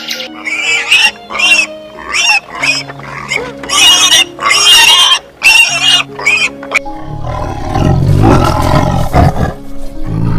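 Background music under a run of about eight short, high animal calls, followed about seven seconds in by a loud, low, rough animal roar.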